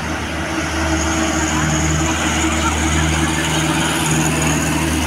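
Bus engine running steadily, a continuous low hum.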